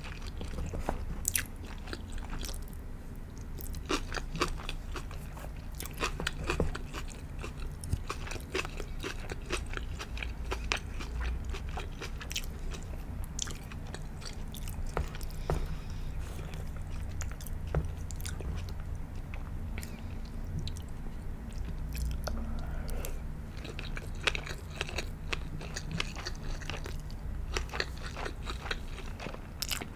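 Close-miked chewing and biting of sushi and sashimi, with many short, sharp, crisp mouth clicks and smacks, over a steady low hum.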